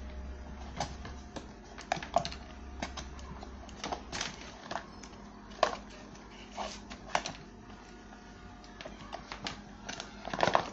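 Cardboard phone box and packaging being handled and opened: irregular sharp clicks, taps and light knocks, with a denser cluster near the end.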